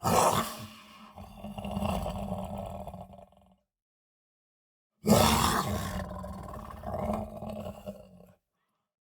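A person's voice letting out two long, loud cries, each starting abruptly and trailing off over about three seconds, with a pause of about a second and a half between them.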